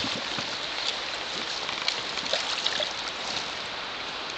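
Stream water running steadily, a hiss with a few small splashes and drips through it.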